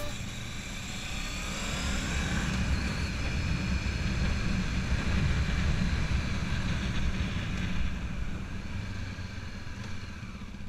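Honda CB500F's parallel-twin engine running as the bike rides along, a steady low rumble mixed with wind rushing over an onboard camera microphone; it picks up a little after a couple of seconds and eases off near the end.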